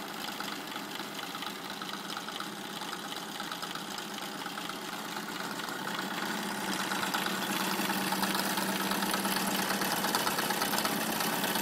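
Wilesco D9 model steam engine running, with its belt-driven M56 workshop models attached: a fast, even mechanical clatter. It gets louder about six seconds in, where a steady low hum also comes in.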